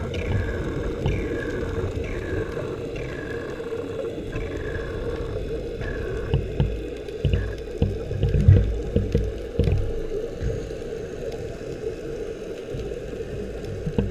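Underwater ambience heard through a camera housing: a steady hum, a string of short falling chirps about once a second in the first half, and irregular low rumbling bursts that are loudest about eight seconds in.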